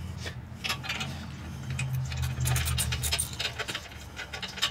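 Ratchet and deep-well socket clicking, with metal clinks, as the half-inch nuts come off a motorcycle's rear exhaust header flange. The clicks are short and irregular, over a steady low hum.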